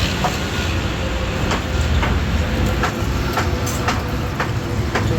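Electric drill running steadily while boring a hole in a water filter part: a loud continuous rumble with scattered sharp clicks.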